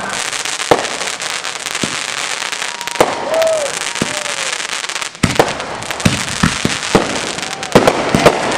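Consumer fireworks going off: a continuous dense crackle with sharp bangs scattered through it, the bangs coming thicker in the second half.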